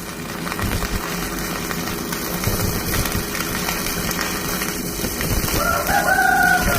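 A rooster crows once near the end, a pitched call about a second long, over a steady low rumble.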